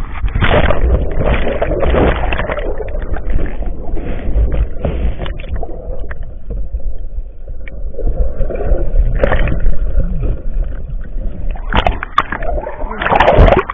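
River water rushing and splashing around a kayak on the move, over a heavy low rumble, with a few sharp splashes or knocks near the end.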